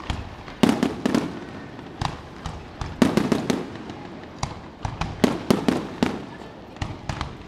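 Aerial fireworks shells bursting overhead: a rapid series of sharp bangs that come in clusters, the biggest followed by a low rumble.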